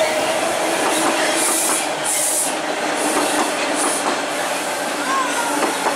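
TTC T-1 subway train running along the open-cut track, a steady rolling noise with scattered clicks from the wheels, easing slightly as the train moves away.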